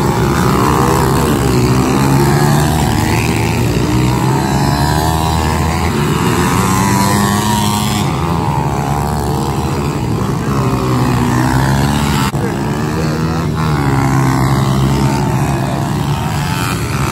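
Several pit bikes racing together, their small single-cylinder dirt bike engines revving up and down. The overlapping pitches keep rising and falling as the riders accelerate and back off.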